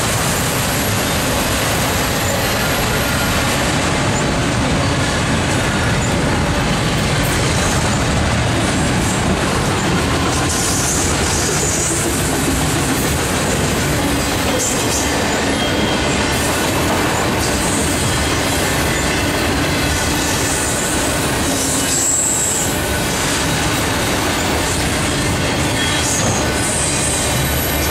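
BNSF freight train of autorack cars rolling past close by: a steady, loud rumble and rattle of wheels on rail, with a few brief, faint, high wheel squeals.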